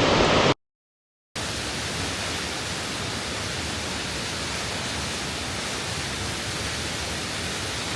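Steady, even rushing of a waterfall. It follows a dead-silent gap of under a second near the start.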